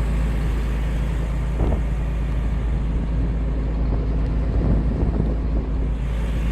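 Vehicle engine running steadily, a constant low drone.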